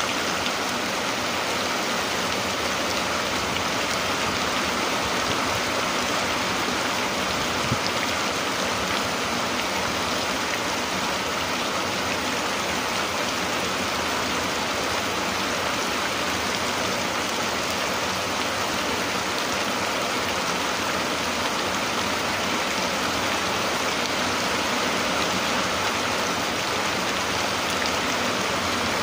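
Steady rain, an even hiss that holds at one level without let-up.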